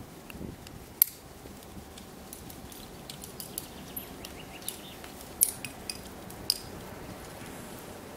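Metal climbing gear on a climber's harness (carabiners and protection on the rack) clinking as he moves up the crack: a few scattered sharp clinks, the loudest about a second in, then more around five and six and a half seconds in.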